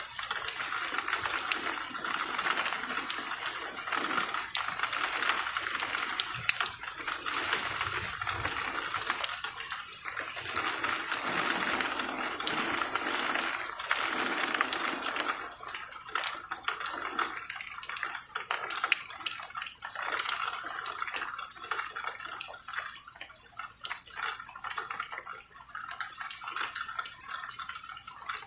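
Rain falling, a dense patter of drops with sharp individual drips, easing somewhat about halfway through.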